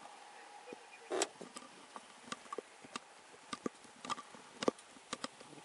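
Faint footsteps on pavement: sharp, irregular taps about two a second, with one louder knock about a second in.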